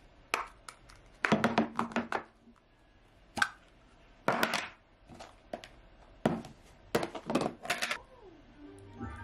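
Tabletop handling noises: plastic food containers being handled and set down, and a metal spoon clinking and scraping in a ceramic bowl, as a string of irregular clicks, knocks and short scrapes in clusters.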